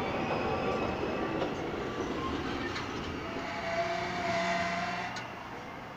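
New York City Subway R32 train pulling out of the station, its wheels and traction motors rumbling as the cars roll past and fading away as the last car leaves. A brief thin whine rises out of the rumble a little past the middle.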